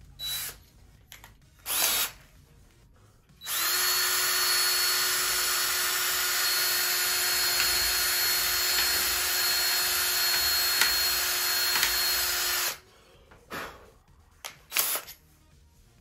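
Cordless drill running steadily for about nine seconds with a steady whine, a quarter-inch bit boring through the balsa wood of a model wing's leading edge to enlarge a pilot hole. Two brief bursts come before the long run and a few light clicks after it.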